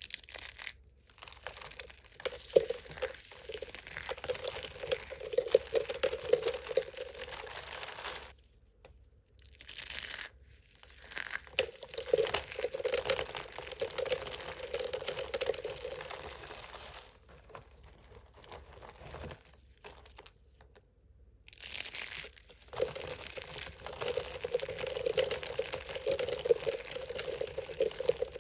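Thick plates of dry soap crunching and crumbling as they are cut and broken apart, a dense crackle in three long stretches separated by short pauses.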